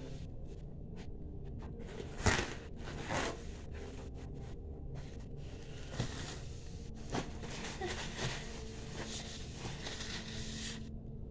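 A few brief rustles and knocks from a handheld phone being moved and handled, the loudest about two seconds in, over a steady low hum.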